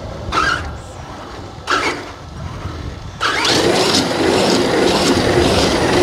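ARRMA Outcast 8S RC truck at full throttle inside a concrete pipe: its motor whines and its tyres run around the concrete wall. The sound starts loud about three seconds in and holds steady.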